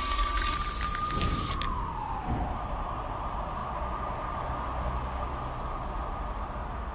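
Intro sound effect: a single tone rises slowly, then glides down in pitch over about a second and carries on as a steady hum over a low rumble. A spray-can hiss fades out in the first second and a half.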